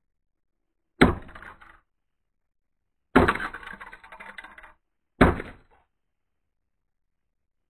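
Three hard blows of a bent piece of car-door metal onto a broken MP4 player lying on concrete, about two seconds apart. Each strike is followed by a brief clatter of plastic and circuit-board pieces skittering across the concrete, the second clatter running longest.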